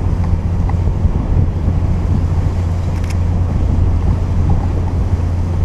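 Wind buffeting the microphone in a steady low rumble, over the wash of choppy water around a small boat's bow.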